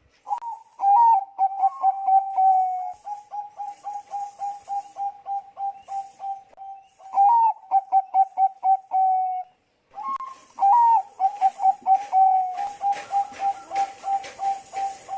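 Zebra dove (Bangkok-bred perkutut) cooing. It sings three phrases, each opening with a few louder notes and running into a long, fast series of short coos, about three or four a second.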